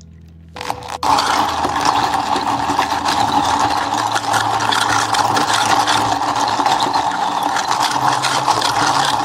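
A café drink-making machine running loudly and steadily for about eight seconds, starting about a second in and stopping near the end, with soft background music underneath.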